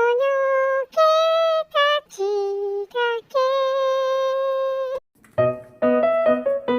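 A high voice sings a slow melody of long held notes. About five seconds in, it gives way to a run of keyboard chords.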